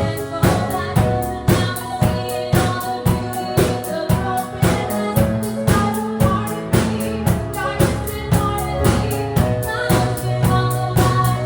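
A rock band playing an instrumental passage: a drum kit keeps a steady beat of about two hits a second under held bass and chord notes.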